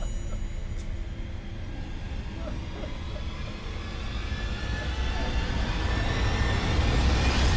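A rising soundtrack swell: a noisy drone with climbing tones that grows louder and higher, then cuts off abruptly at the end.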